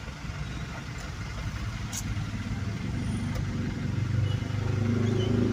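A motor vehicle's engine running, growing louder as it comes closer, loudest near the end.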